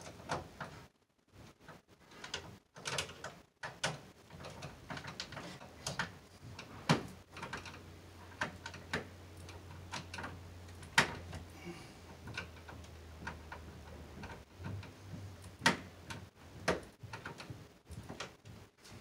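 Scattered sharp clicks and taps of wires and hand tools against a metal breaker panel as circuit wires are worked onto the breakers.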